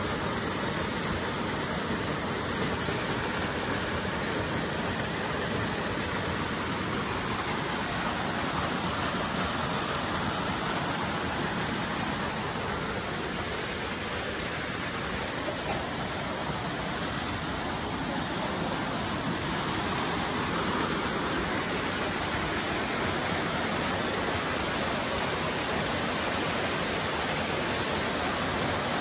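Waterfall draining Lake Agnes, pouring steadily: a constant, even rush of falling water.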